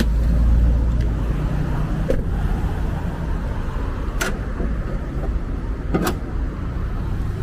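Low, steady motor-vehicle rumble, with three sharp clicks about two, four and six seconds in.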